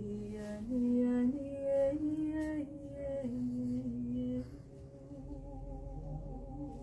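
A woman singing wordless held notes, stepping up and down between pitches. About halfway in the voice drops back to a softer, steady held tone.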